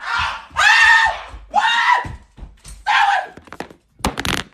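A person screaming in panic in four short, high-pitched bursts, then a quick cluster of knocks and rattles near the end as the phone recording it is grabbed and handled.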